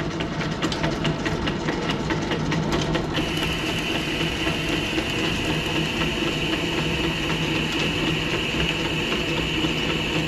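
Wade 8A manual lathe running under power on an internal thread-cutting pass, half nut engaged so the leadscrew drives the carriage: a steady machine hum with rapid ticking for the first few seconds, then a steady high whine joins about three seconds in.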